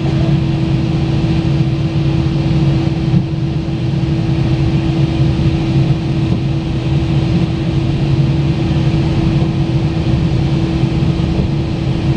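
Airbus A319 cabin noise while taxiing, heard from inside the cabin: the engines at idle give a steady drone with a constant mid-pitched tone over a low hum.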